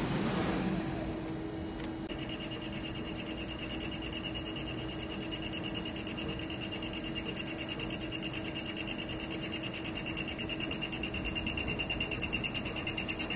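CNC lathe running: a broad machining hiss dies away in the first second or two, then a steady electric whine pulses about six times a second and grows slightly louder near the end.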